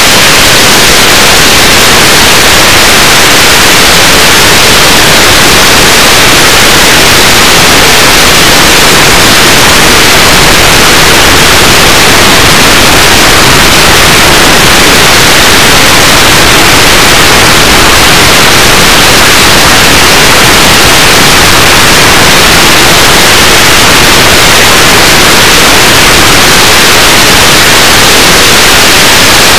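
Loud, steady hiss like radio static, unchanging and with no motor tone or other distinct sound in it.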